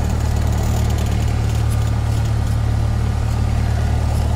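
High-wing light airplane's piston engine and propeller running steadily at low power as the plane taxis, a deep, even drone heard from inside the cabin.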